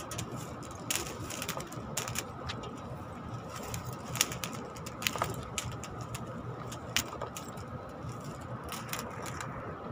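Scattered light clicks and taps of electrical wire and flexible conduit being handled, over a steady low hum.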